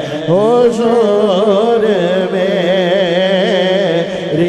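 A man singing a naat into a microphone: one long wavering phrase that glides up at the start, over a steady held drone underneath.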